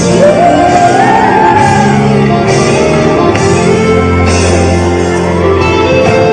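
Live pop band with a female lead singer, amplified loud through a concert PA in a large hall. The voice rises into long held notes over a steady beat.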